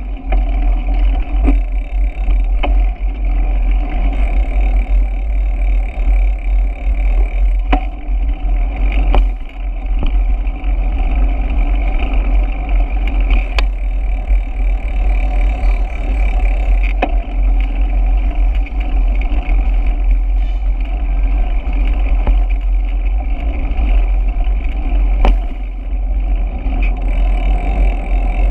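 Steady wind rumble and road noise from a bicycle rolling along a city street, picked up by a bike-mounted camera's microphone, with a few sharp knocks from bumps in the road.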